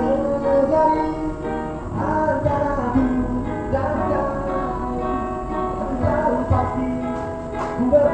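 Background music: a pop song with singing over plucked guitar and a steady low beat.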